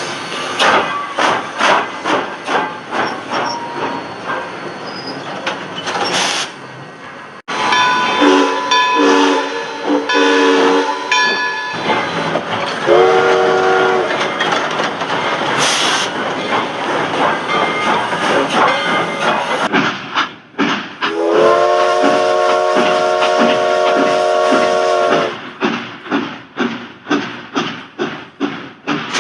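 Steam locomotive sounds: steady rhythmic exhaust chuffs, a few short steam-whistle blasts about a third of the way in, and one long whistle blast of about four seconds later on. The sound changes abruptly twice, where clips are cut together.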